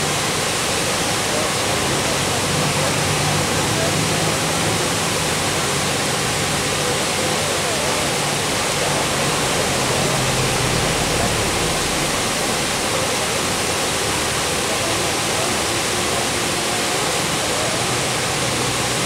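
Bald River Falls pouring down a steep rock face into its plunge pool: a steady, even rush of falling water that does not change.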